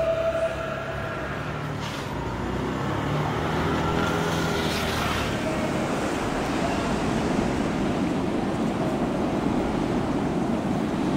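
A motor running with a low, steady hum for about the first five seconds, then a steady rush of wind and water noise.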